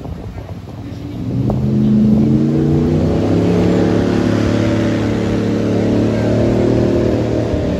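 Airboat engine and propeller running at high power, swelling in loudness about a second and a half in and then holding, its pitch wavering a little over a steady hiss.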